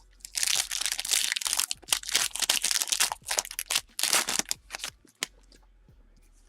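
A trading card pack's wrapper being torn open and crinkled in the hands, a dense, loud crackling for about four seconds that stops about a second before the end, with a single click after it.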